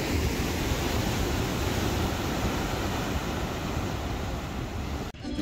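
Ocean surf breaking and washing over the beach, with wind rumbling on the microphone. It cuts off suddenly near the end.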